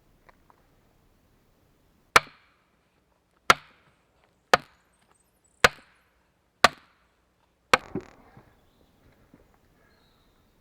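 Axe chopping wood: six sharp blows about a second apart, the last followed by a brief clatter.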